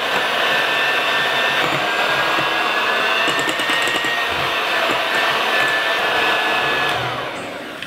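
Kenwood electric hand mixer running steadily, its beaters mixing flour into egg batter in a glass bowl, with a thin motor whine over the whirr. It fades out near the end.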